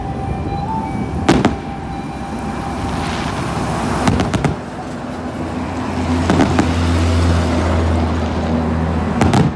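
Fireworks going off: sharp bangs about four times, a couple of them in quick doubles, over a steady background rumble that deepens about halfway through.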